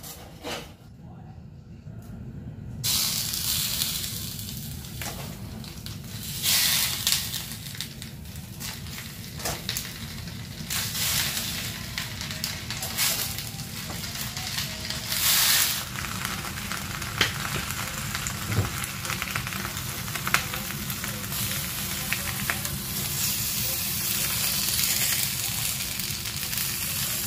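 Food sizzling in a hot pan, starting suddenly about three seconds in, with scattered pops and crackles.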